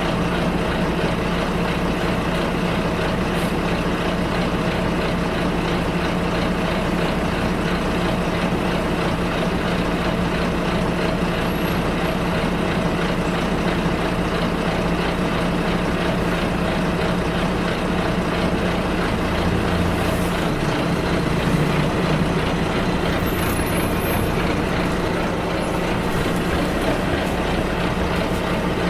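Bus engine and road noise droning steadily, heard from inside the bus while it drives. The engine note shifts about twenty seconds in, and there are faint high squeaks shortly after.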